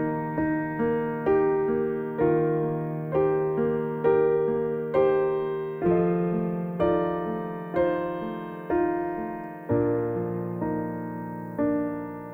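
Slow, gentle electric piano or keyboard music, notes and chords struck roughly every second over held bass notes.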